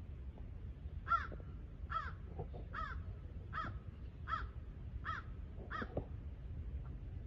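A crow cawing seven times in an even series, about one caw every three-quarters of a second, starting about a second in.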